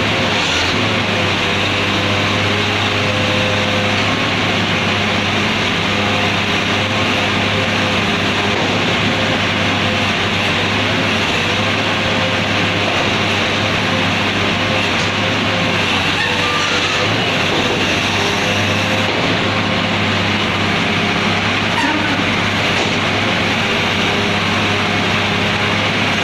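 Heavy truck's diesel engine running steadily: a continuous low drone with a steady hum.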